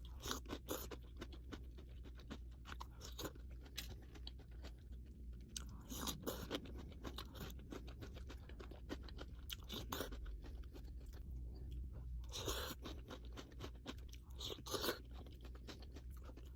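Close-miked eating: a person chewing mouthfuls of a Chipotle burrito bowl with crunchy bites and many small wet mouth clicks, over a steady low hum.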